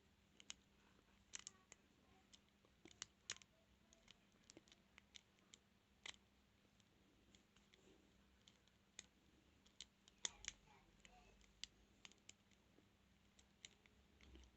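Faint, irregular small metal clicks and scrapes of a lock pick and tension tool working the pins of a transparent practice padlock during single pin picking.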